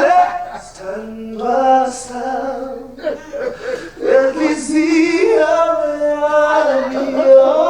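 A man singing a slow melody, holding long notes with vibrato, with two short breaks between phrases.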